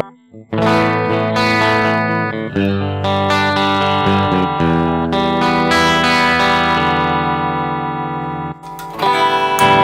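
Electric guitar with a clean tone, played through a Carl Martin Compressor/Limiter pedal: notes and chords struck about half a second in and over the next few seconds, then left ringing with a long, even sustain, and fresh playing begins near the end.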